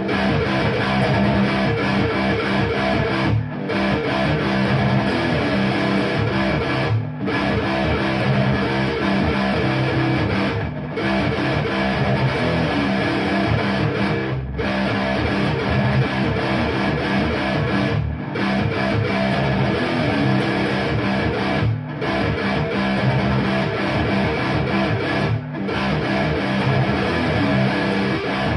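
Electric guitar played through a Framus Cobra 100-watt valve head into a Marshall MF400A 4x12 cabinet with Celestion G12K-100 speakers. It plays a riff that repeats about every three and a half seconds, with a brief break before each repeat.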